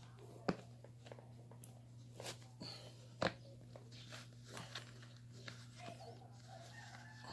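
A few scattered light taps and knocks, the clearest about half a second and about three seconds in, over a steady low hum.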